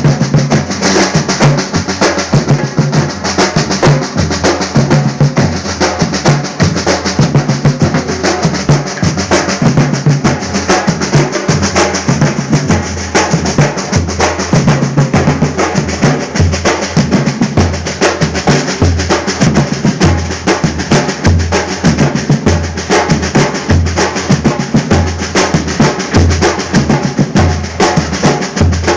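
Drums playing continuously in a fast, dense rhythm, with rapid sharp strokes over deep pulsing bass-drum hits.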